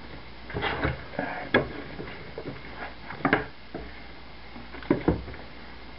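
Packing material and box contents being handled during unboxing: a handful of short rustles and knocks, the loudest about three seconds in and again near five seconds.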